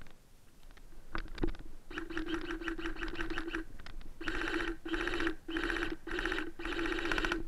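Airsoft gun firing on full-auto with a buzzing whine: one burst of about a second and a half, then five short bursts in quick succession. A few knocks come just before the first burst.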